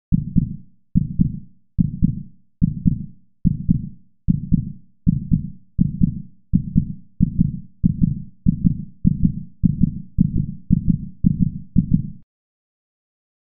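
Heartbeat sound effect: low double thumps, lub-dub, speeding up from about one beat a second to about two a second, then stopping suddenly near the end.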